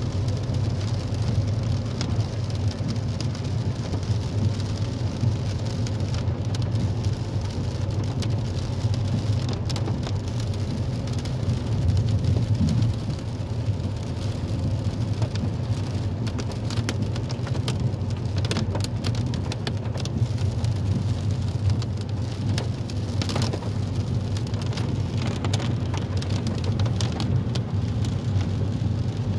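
Steady low road rumble heard inside a moving car on a wet road, with rain hissing and drops ticking on the roof and windshield, the ticks thicker about halfway through.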